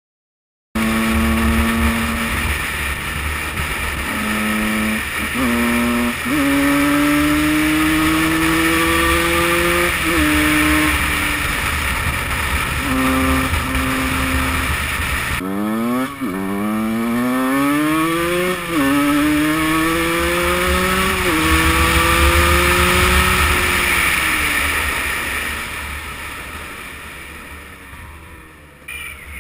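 Two-stroke motocross motorcycle engine accelerating hard, its pitch climbing and then dropping at each gear change, shifting up through the gears. An abrupt cut about halfway through leads to another run of fast revving and upshifts, and the engine sound fades away near the end as the bike rides off.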